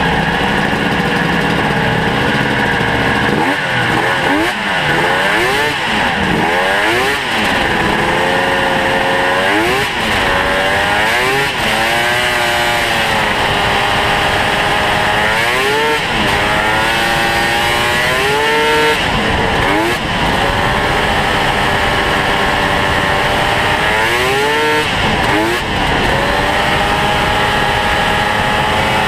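Ski-Doo Mach Z snowmobile's home-ported two-stroke engine under way, its pitch climbing and falling repeatedly as the throttle is opened and eased off.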